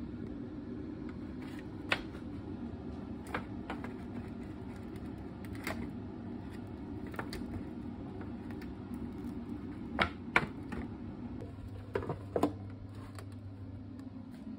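Steady hum of a running kitchen appliance, with scattered sharp clicks and taps of a foil baking tray and bread being handled. The taps are loudest about two thirds of the way through.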